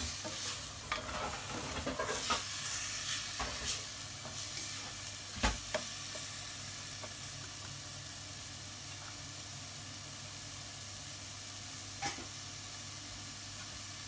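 Chicken pieces and onion sizzling in a frying pan while a spatula stirs and scrapes them, knocking against the pan several times in the first six seconds and once near the end. Between the knocks the sizzle is steady.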